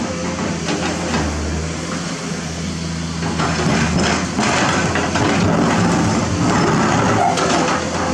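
Diesel engine of a Komatsu PC210 excavator running steadily, with irregular knocking and clatter that grows busier from about three seconds in.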